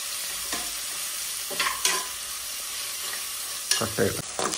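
Sliced onions and green chillies sizzling in hot oil and ghee in a pressure cooker, with a spatula scraping and knocking against the pot a few times.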